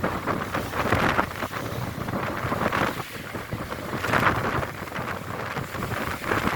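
Wind buffeting the microphone in gusts aboard a ship under way, over a steady rush of sea and ship noise. The wind swells and eases every second or so.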